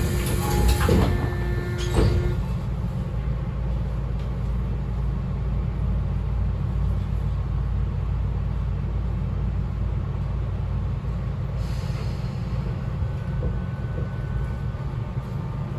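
Interior of a Tobu 9000 series electric train before it moves off: a steady low hum from the car's equipment, with a few clunks in the first two seconds and a short hiss of air about twelve seconds in, typical of the brakes releasing.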